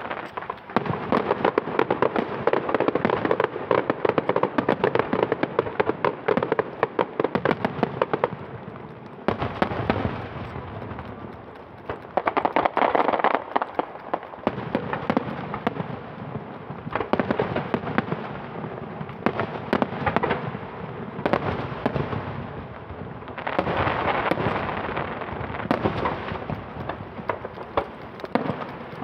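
Fireworks display: many aerial shells bursting in rapid, overlapping bangs and crackles. Denser, louder barrages come and go every few seconds.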